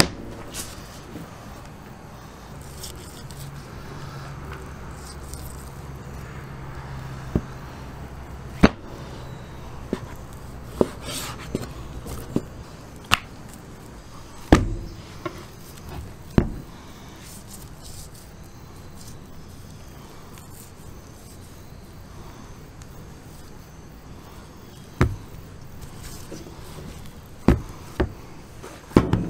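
Sharp knocks and slaps, about fourteen at irregular intervals, as thick raw bone-in steaks are handled and set down on a plastic cutting board. A low steady hum runs underneath through the first third.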